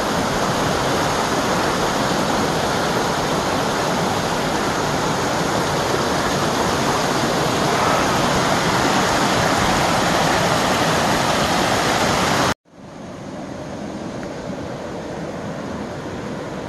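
Shallow mountain creek rushing and splashing over rocks, a loud, steady roar of water. About twelve and a half seconds in it cuts off abruptly, giving way to a quieter, steady rushing hiss.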